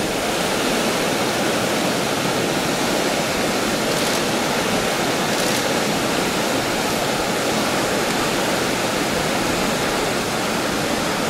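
Mara River running fast over rocky rapids: a steady, unbroken rush of water.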